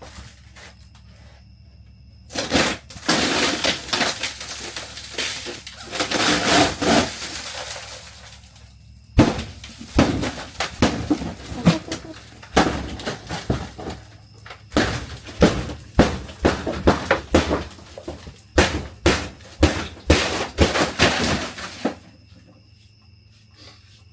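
Demolition of a vintage RV's interior: paneling and wood cracking and tearing for several seconds, then a long run of sharp hammer blows and breaking, several a second, that stops about two seconds before the end.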